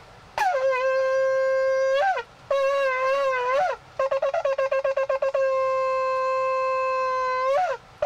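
Ram's-horn shofar blown in a series of calls used in Jewish prayer: a long blast that flips upward at its end, a shorter wavering blast, a rapid run of short staccato notes, then a long steady blast of about two seconds that also ends with an upward flip.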